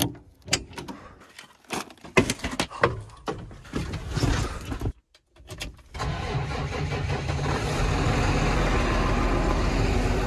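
New Holland tractor cab door opening, then a run of clunks and knocks as the driver climbs in. About six seconds in, the tractor's diesel engine starts and runs, growing louder over the next two seconds.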